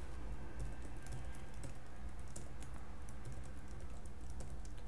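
Typing on a computer keyboard: quiet, rapid key clicks as text is entered into a series of form fields.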